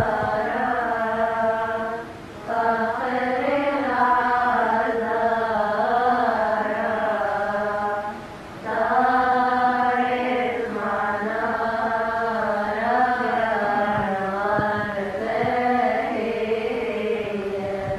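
A woman's solo voice chanting an Arabic Coptic praise hymn (madih) in long, wavering, melismatic notes without clear words, breaking off briefly twice, about two seconds in and about eight seconds in.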